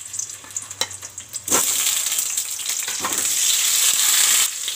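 Whole boiled potatoes going into hot mustard oil in a metal pan: a few light knocks as they land, then the oil sizzles loudly from about a second and a half in.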